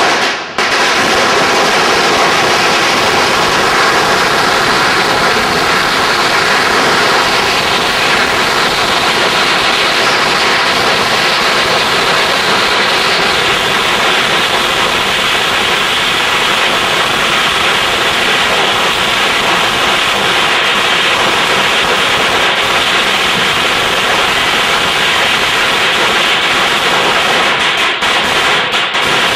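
Ground firework on the pavement spraying sparks with a loud, steady hissing rush that starts about half a second in and keeps up without a break for nearly half a minute. A few sharp cracks come near the end.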